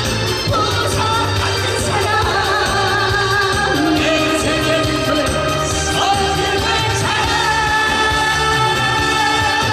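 A man and a woman singing a Korean duet into microphones, amplified, over instrumental accompaniment, the voices held with vibrato.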